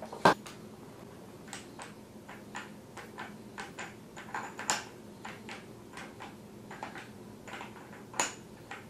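Irregular light metallic clicks and ticks as the fork top cap is threaded by hand onto the motorcycle's front fork tube over the new spring and spacer. A louder click comes just after the start and another near the end.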